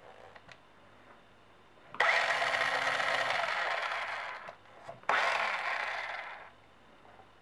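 A Hot Wheels remote-control Batman Tumbler's small electric drive motors and gears whirring in two short runs, driven from the joystick controller. The first run starts about two seconds in and the second just after five seconds. Each starts suddenly with a brief rising pitch, then fades away.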